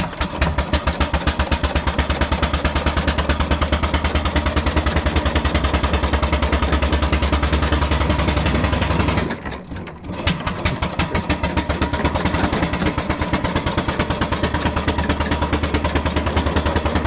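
Miniature steam traction engine under way: rapid, even exhaust beats with the clatter of its motion and gearing. The beats stop for under a second about nine seconds in, then pick up again.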